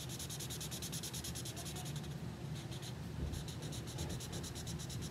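Felt-tip marker scribbling back and forth on paper, colouring in an area with quick, even strokes, pausing briefly about two seconds in.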